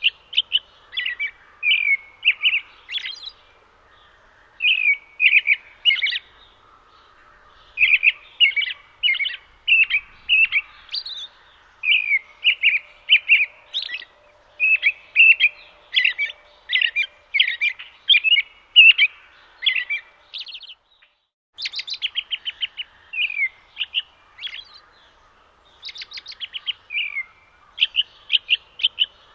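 European robin singing: strings of quick, high warbled notes and trills in phrases broken by short pauses.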